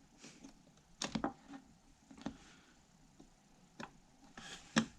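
Scattered sharp plastic clicks and taps from a flip phone's parts being handled and pried apart, with a small cluster of clicks near the end.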